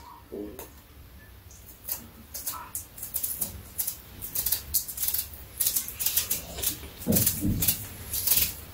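A knife peeling a large Korean pear by hand: a run of quick, crisp snicks and scrapes as the blade cuts through the skin, starting about two seconds in.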